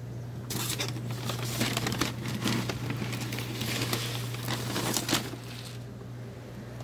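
Dense crackling, crumpling rustle close to the microphone, starting about half a second in and stopping near the end, over a steady low hum.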